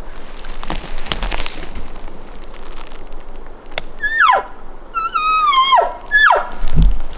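Three high, nasal mews, each sliding steeply down in pitch, the middle one longer and wavering: cow elk calls. Before them there are a few clicks and some rustling, and near the end a low thump.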